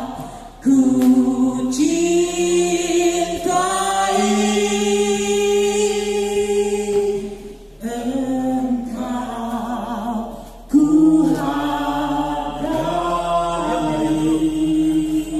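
Choir singing a slow piece in long held notes, the phrases breaking off briefly about eight and ten seconds in.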